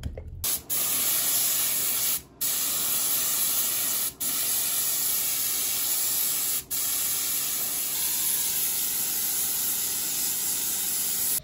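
Compressed-air spray gun hissing steadily as it sprays paint, with four brief breaks in the spray.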